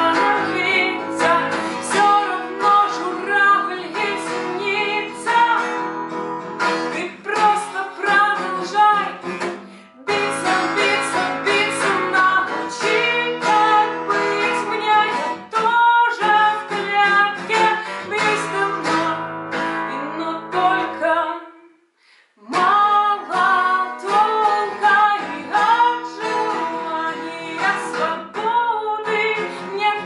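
A woman singing in Russian to a strummed acoustic guitar. The music breaks off briefly about two-thirds of the way through, then resumes.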